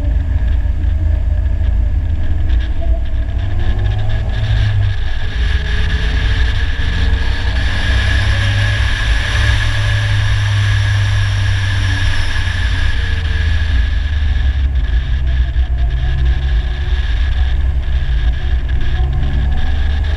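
Polaris Slingshot three-wheeler driving at speed: a steady low engine and road rumble, its pitch rising and falling with the throttle. A rush of wind noise swells and fades around the middle.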